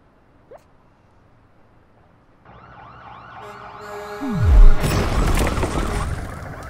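A dog whimpers faintly once about half a second in. From about two and a half seconds in, wailing sirens and dramatic music swell up, with a deep falling boom about four and a half seconds in, followed by a loud noisy rush that cuts off sharply.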